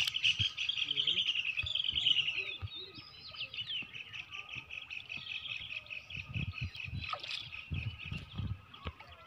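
Bird chirping in a fast, loud trill for the first couple of seconds, then a softer run of quick repeated chirps. A few low thuds come near the end.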